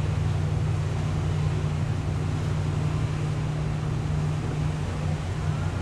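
Steady low hum of the cruise ship Mein Schiff 2's engines and machinery, with a haze of wind noise over it.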